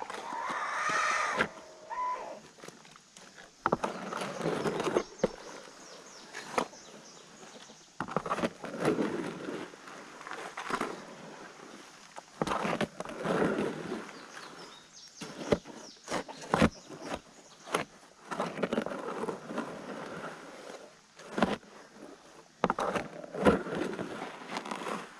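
Wet concrete being mixed by hand in a plastic feed tub: repeated scraping strokes about a second or two long, with knocks and clicks between them.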